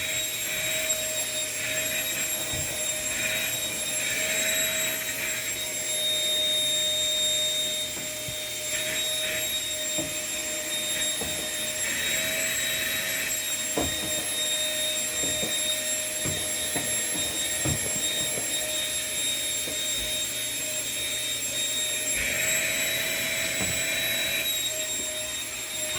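Vacuum cleaner running steadily with a high motor whine. Now and then comes a rushing hiss and a few short clicks as paper scraps are sucked in.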